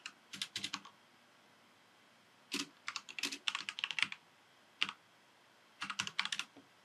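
Computer keyboard typing: short runs of quick keystrokes with pauses between, a burst near the start, a longer run from about two and a half to four seconds in, a single key near five seconds, and a final short run near the end.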